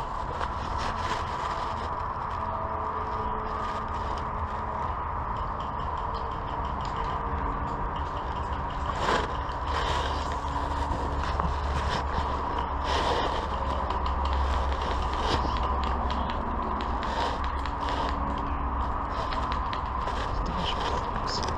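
Steady outdoor background noise with a low rumble, broken by scattered short rustles and clicks; two sharper clicks come about nine and thirteen seconds in.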